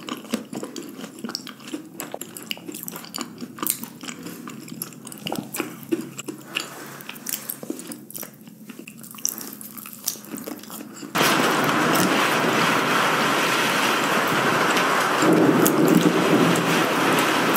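Scattered sharp clicks and crackles. About eleven seconds in they give way suddenly to the loud, steady noise of heavy storm rain.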